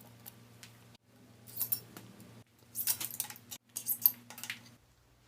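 Light metallic clicking and rattling of bicycle cables and small tools being handled during cable replacement, in three short bursts.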